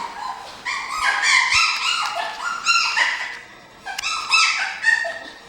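Several Goldendoodle puppies whining and yipping, a quick run of short, high-pitched, overlapping cries with a brief lull just before four seconds in.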